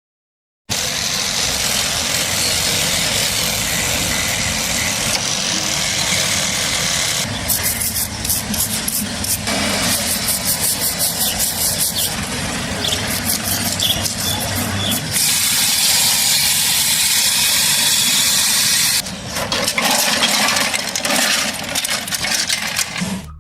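A small motor running with a loud, noisy sound that starts abruptly about a second in. Around the middle it turns to a rapid, even pulsing, runs steady for a few seconds, then pulses again near the end.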